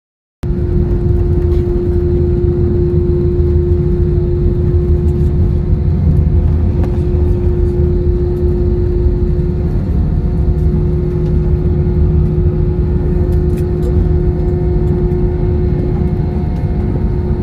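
Airliner cabin noise during landing, heard from a window seat: a steady low rumble of engines and airflow with a constant hum on top.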